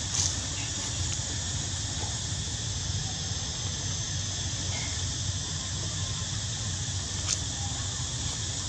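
A macaque gives one short, high squeak just after the start, over a steady high outdoor hiss and low hum; a brief sharp click comes near the end.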